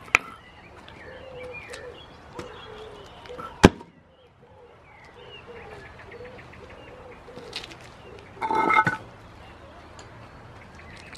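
A concrete paving slab knocks sharply against stone once, loudly, a little over three and a half seconds in, after a lighter knock at the start. A goat bleats once, briefly, near the end, over faint bird chirps.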